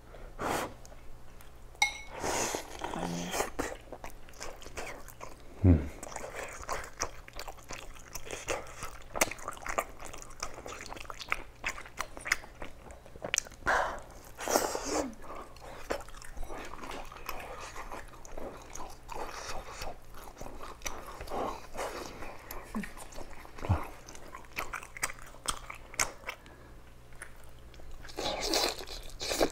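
Close-up eating sounds: biting and chewing pieces of pork belly, with scattered small clicks and smacks throughout.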